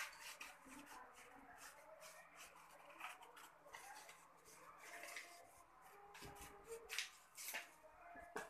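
A few faint, scattered snips of small scissors cutting through a sheet of paper.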